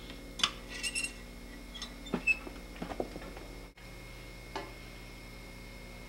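Scattered light metallic clinks and knocks from a glassblowing blowpipe being worked in a small electric glass furnace's crucible while taking a gather, over a steady low hum.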